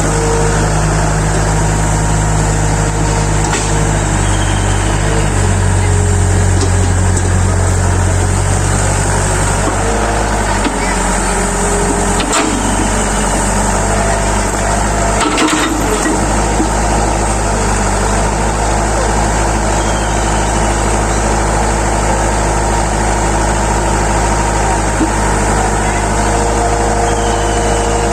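Excavator engine running steadily, its pitch rising a little for a few seconds in the first third, with two brief knocks around the middle.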